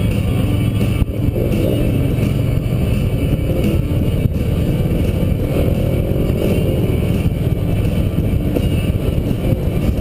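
Touring motorcycle riding at highway speed: a steady engine rumble under heavy wind noise on the on-board microphone.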